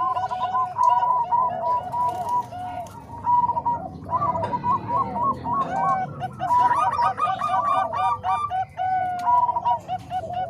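Zebra doves (perkutut), Bangkok and cemani kolbuntet strains, cooing together: quick runs of short, clipped coo notes from two or more birds at different pitches overlapping.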